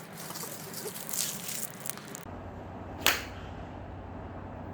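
Rustling and handling noise, then a single sharp crack about three seconds in: a Kirkland wedge striking a golf ball.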